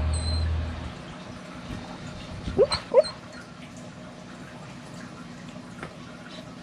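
Beagle whimpering in its sleep while dreaming: two short rising yips close together about two and a half seconds in.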